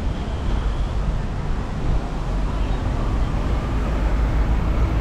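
Steady low rumble of wind buffeting a bike-mounted action camera's microphone while riding, with city street traffic mixed in.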